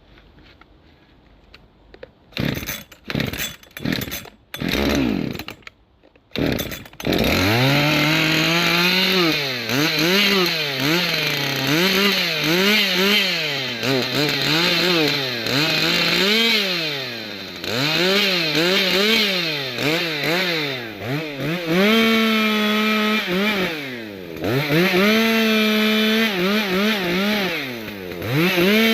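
Ported Makita EA6100 61 cc two-stroke chainsaw with a 24-inch bar being started: a few short sputtering bursts, then it catches about seven seconds in. It is revved up and down over and over, then held at full throttle for several seconds at a time with short drops back toward idle.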